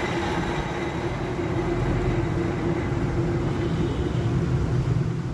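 A workshop machine running steadily: a low rumble with a steady whine over it; the whine fades about four seconds in.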